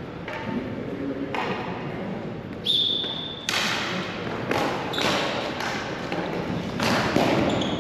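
Ball hockey play: a string of sharp knocks and thuds from sticks, ball and boards, ringing in a large hall, with a short steady high-pitched tone about three seconds in.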